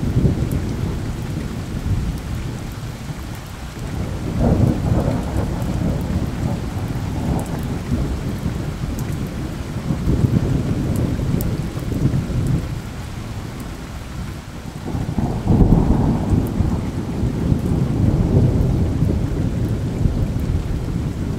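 Thunder rumbling in long low rolls over steady rain. It swells three times, and the loudest roll comes about two-thirds of the way through.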